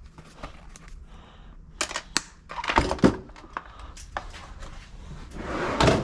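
Scattered clicks and knocks of parts and packaging being handled on a workbench, busiest about three seconds in, with a rising rustle near the end.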